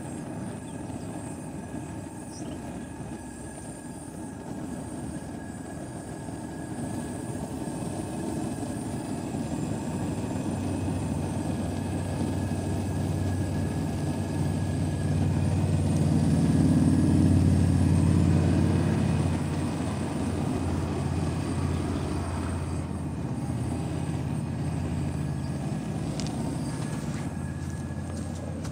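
Flames from the perforated pipe burner of a homemade used-motor-oil gasifier, burning its oil vapor with a steady low rumble that swells for a few seconds past the middle. The wind is blowing the flames about.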